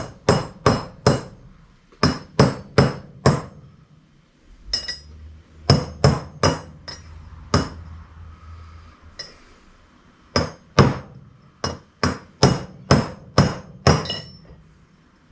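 Hammer tapping an old wheel-bearing race used as a drift to drive the new bearing race into the front hub, metal on metal, each blow ringing. The taps come in three runs of quick strikes with short pauses between them.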